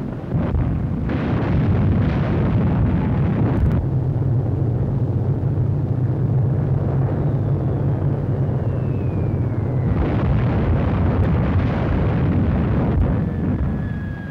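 Battle sound on an old film soundtrack: a continuous rumble of artillery fire and exploding shells. In the middle a whistle falls in pitch for a few seconds and ends in a fresh blast about ten seconds in.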